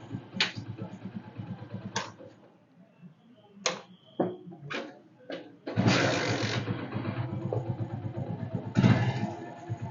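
Hero HF Deluxe's single-cylinder motorcycle engine running with sharp clicks, falling quiet about two and a half seconds in while a few more separate clicks sound, then starting and running again about six seconds in, with a brief rev near the end. The bike has a noise from the kick-start spring, sounding as if the kick lever is loose and free.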